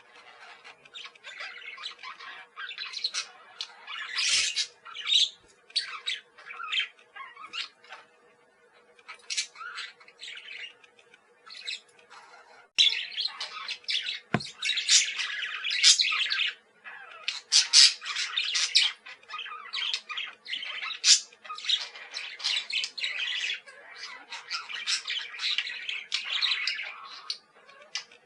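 Several pet parakeets chattering: rapid chirps, warbles and harsh squawks, continuous and overlapping, busier in the second half.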